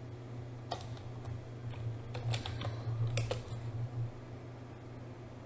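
Computer keyboard keys tapped in a few short runs of clicks between about one and three and a half seconds in, over a low hum that stops about four seconds in.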